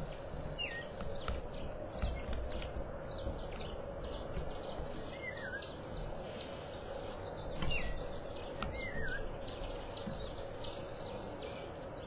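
Several birds calling: many short, quick chirps with a few warbled whistles among them, over a steady low hum and background noise.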